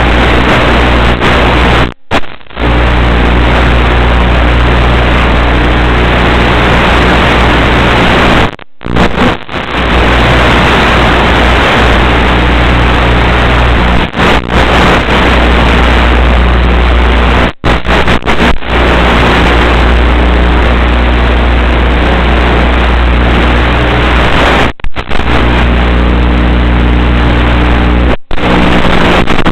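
Loud, steady rushing noise with a low hum underneath, carried over the aircraft's 5.8 GHz analog FPV video link, cut by about six brief sudden dropouts.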